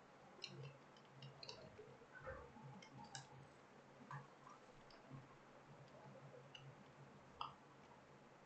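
Faint, irregular clicks of keys being typed on a computer keyboard.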